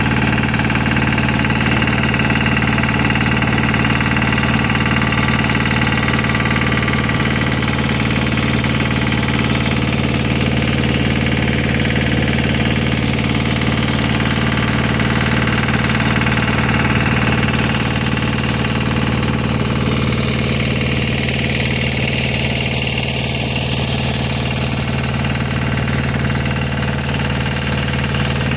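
An engine idling steadily, with an even, unbroken drone.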